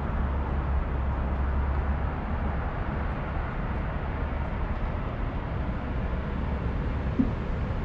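Steady airport background din with a low rumble underneath, and one short knock about seven seconds in.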